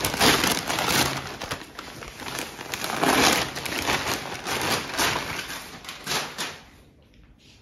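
Gift wrapping paper being ripped and crinkled in repeated bursts as a present is torn open, dying down about seven seconds in.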